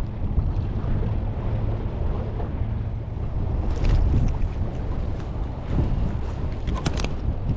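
Strong wind buffeting the microphone, a heavy low rumble, with a few sharp clicks about four seconds in and again near the end.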